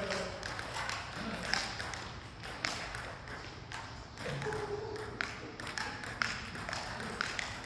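Sports-hall ambience between badminton rallies: scattered sharp taps, with faint voices in the background.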